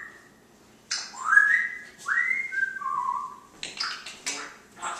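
African grey parrot whistling: a few rising whistled notes in the first few seconds, the last one stepping down lower, followed by a run of short harsh, raspy sounds near the end.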